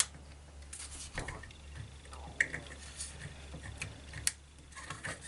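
A small screwdriver working at a plastic wiring connector to free it from a washing-machine door latch: irregular small clicks and scrapes of metal on plastic, about a second apart.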